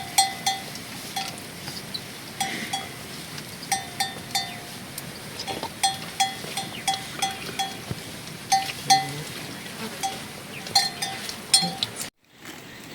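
Bells worn by grazing livestock clanking irregularly, dozens of short metallic clinks of one pitch, sometimes several in quick succession as the animals move. The sound cuts off suddenly near the end.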